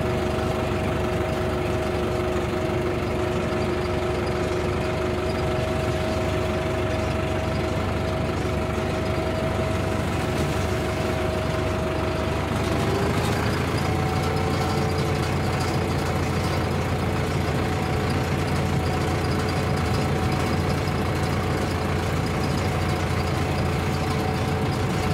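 Tractor engine running steadily as the tractor drives along, its pitch stepping up slightly about halfway through.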